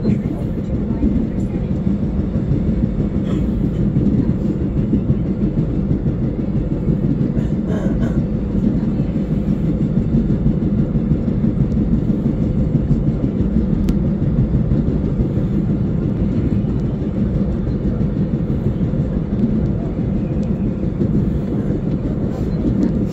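Seoul Subway Line 1 train running at speed, heard from inside the car: a steady, even low rumble of the train in motion.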